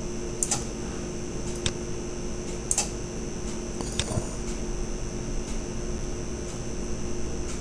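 Steady fan hum with a faint high whine, and four short mouse clicks about a second apart as colours are picked on a colour wheel.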